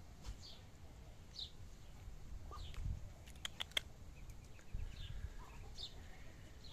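Muscovy ducklings peeping now and then: short, high, downward-sliding peeps. A quick cluster of sharp clicks comes about halfway through.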